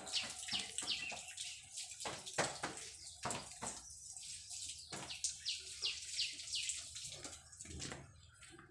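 Thin metal skewers clicking and clinking as marinated meat is threaded onto them, with a bird calling in quick, repeated falling chirps over the first seconds.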